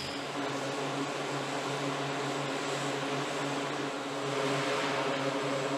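Northrop Grumman E-2 Hawkeye's two turboprop engines running on the ground with the propellers turning: a steady hum with a hiss over it, a little louder in the second half.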